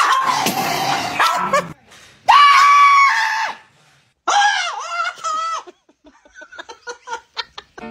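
Small dogs crying out with loud high-pitched cries: two drawn-out ones about a second each, then a rapid run of short, quieter yips near the end.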